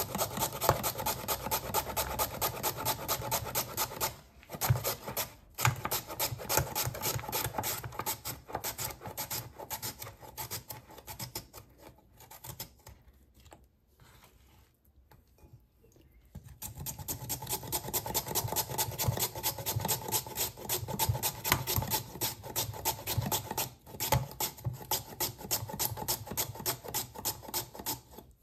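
Quick, rhythmic rasping strokes of a blade working raw potatoes, several a second. They die away for a few seconds past the middle and then pick up again.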